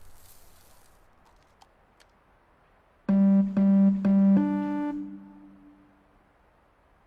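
Four short synthesizer or keyboard tones in quick succession, about half a second apart, starting about three seconds in. The fourth is at a different pitch and rings out for about a second and a half before fading.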